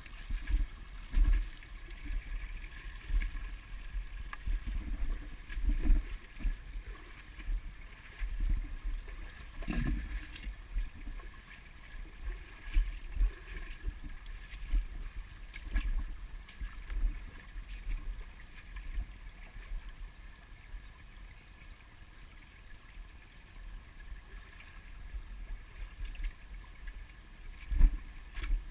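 Shallow creek trickling over rocks, a steady hiss of running water. Irregular low thumps hit the microphone throughout, from the walking camera.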